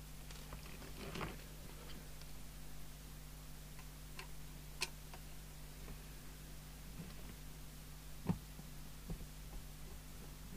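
A few scattered small clicks and taps of a screwdriver working out the screws of a CB radio's metal case, the loudest a little after eight seconds in, over a faint steady hum.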